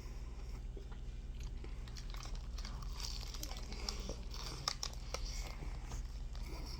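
Someone eating crunchy food, with bites, chewing and the crinkle of paper wrapping: a scatter of small crackles with one sharper click about two-thirds of the way in, over a steady low hum.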